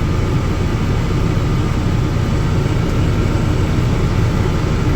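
Steady diesel engine drone of heavy farm machinery running at a constant speed, with faint steady whines above it.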